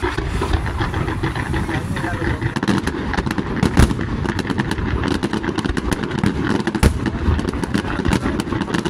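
Aerial fireworks display: many shells bursting in quick succession, sharp bangs and crackles over a constant low rumble. The cracks come thicker from about two and a half seconds in, with a single loud report near the seven-second mark.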